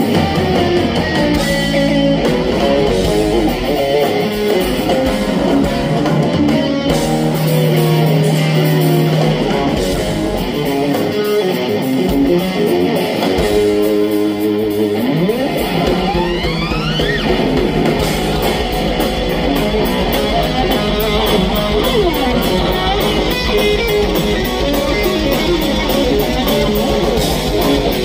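Live instrumental rock played through a concert sound system: fast lead electric guitar over drums and bass, with a long rising pitch slide on the guitar about halfway through.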